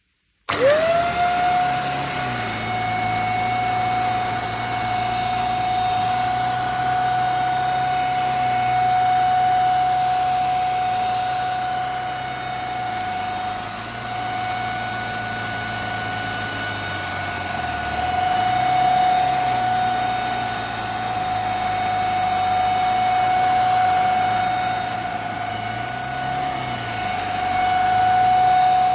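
A handheld mattress vacuum cleaner's motor switching on about half a second in, its whine rising quickly to a steady high pitch and running on with a low hum underneath that wavers now and then.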